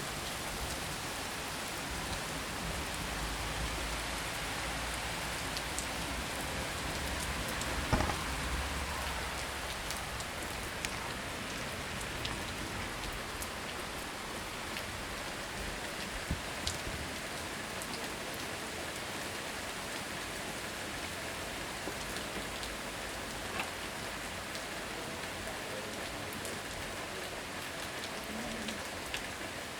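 Intense rain falling steadily, with scattered louder drop ticks and one sharp knock about eight seconds in. A low rumble under the rain dies away in the first ten seconds.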